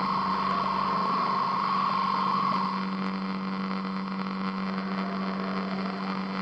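A steady low humming drone holding one pitch, with a higher tone on top that fades out about two and a half seconds in.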